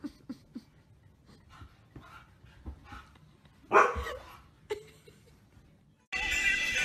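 Husky making faint short whimpers, then one loud bark about four seconds in and a smaller one shortly after. Music starts near the end.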